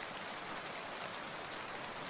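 Water making a steady, even hiss, with little low rumble and no change throughout.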